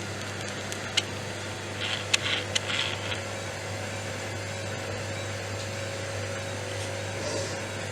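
Kitchen handling noises: a few sharp clicks and brief clatter about one to three seconds in, over a steady low hum.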